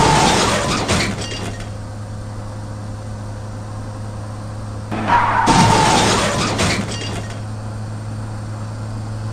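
Car crashing into a roadside crash cushion, twice: a sudden noisy impact at the start and another about five seconds in, each led by a brief high tone and dying away over a second or so. A steady low hum runs underneath.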